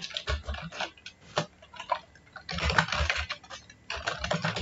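Typing on a computer keyboard: an uneven run of key clicks, with quicker flurries about halfway through and again near the end.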